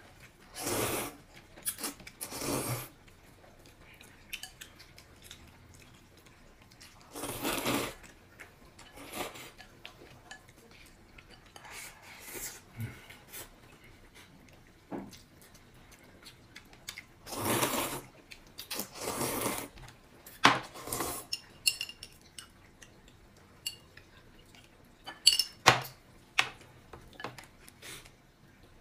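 Eating utensils clinking and scraping against bowls and dishes in scattered bursts, with a few sharp clicks in the second half.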